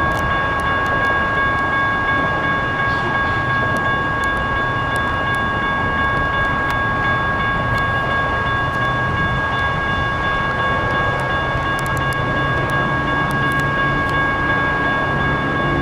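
GS Type 1 electronic railroad crossing bell ringing steadily, warning of an approaching light rail train, over a constant rush of noise. A low hum comes up near the end.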